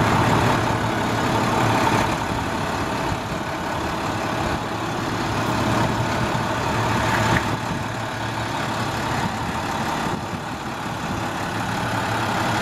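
2006 International 4300 truck's DT466 inline-six diesel idling steadily, growing louder near the end.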